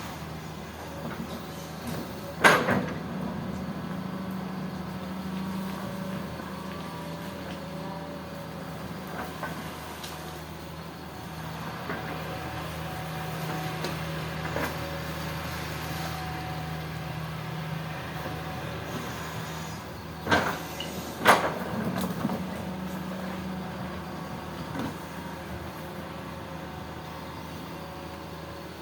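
Hitachi hydraulic excavator's diesel engine running steadily while it digs, with loud sharp clanks once about two and a half seconds in and twice more, about a second apart, later on.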